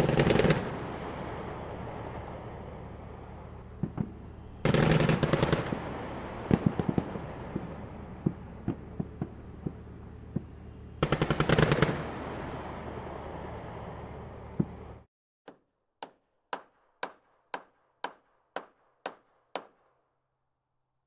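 Machine-gun fire in three long bursts, with a rumbling echo and scattered single shots between them. It cuts off suddenly and is followed by about ten sharp knocks, roughly two a second.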